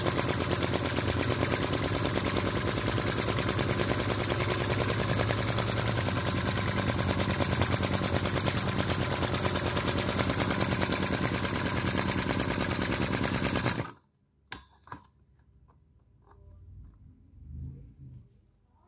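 Model V-twin vacuum (flame-licker) engine running fast with a rapid, even popping, the sound of its flame valves sucking in the flame. About fourteen seconds in the sound cuts off suddenly, leaving near quiet with a few light clicks and soft handling knocks.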